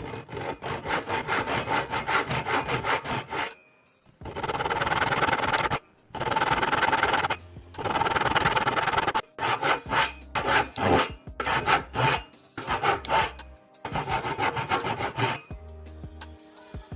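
Hand saw cutting through wood in several bouts of quick, regular back-and-forth strokes, with short pauses between bouts.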